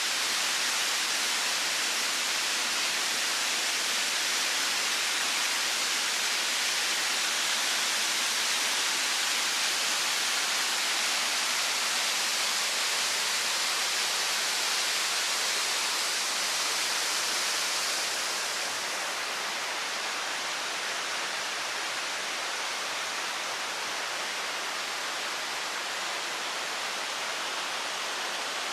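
Waterfall rushing, a steady loud hiss of falling water. About two-thirds of the way through it becomes a little quieter and less bright, then runs on steadily.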